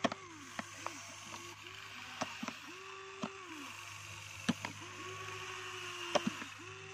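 Remote-control toy excavator's small electric motors whining in repeated runs of about a second, each sliding up at the start and down at the end as the arm moves, with sharp plastic clicks in between.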